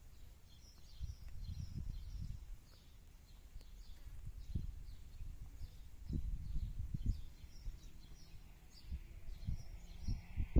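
Wind buffeting the microphone in uneven gusts, with small birds chirping in short, repeated calls in the background.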